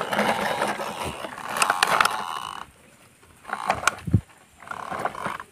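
Plastic toy truck scraping and crunching over dirt and gravel in bursts with pauses between them, with a low thump about four seconds in.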